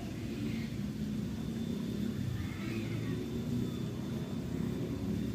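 Steady low rumble of distant road traffic, with a faint high call near the middle.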